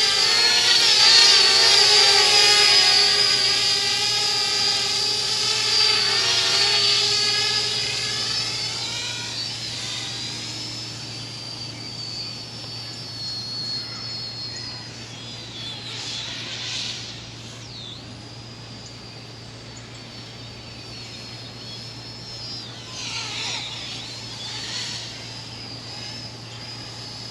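Parrot Bebop 2 quadcopter's propellers whining, the pitch wavering as it manoeuvres. It is loud at first, fades after about eight seconds as the drone moves away, and swells briefly twice later on.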